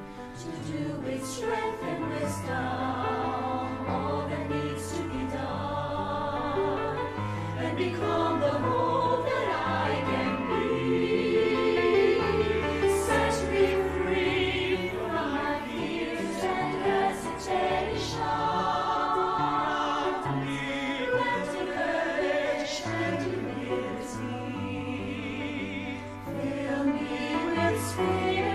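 An inspirational prayer song sung by a choir in English over instrumental backing, with lines such as "and become the hope that I can be" and "fill me with the spirit to face the challenge."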